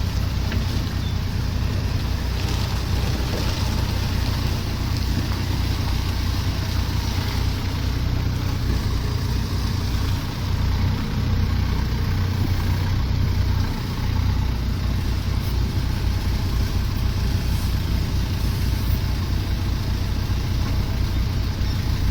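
Engine of a heavy machine, a backhoe or a forklift, running steadily with a low, even rumble, dipping briefly twice around the middle.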